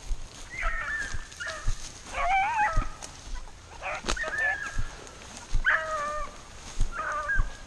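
Beagles baying on a rabbit's trail: about six drawn-out bawls, some wavering in pitch, spread over several seconds. Low thuds of footsteps through tall grass sound beneath them.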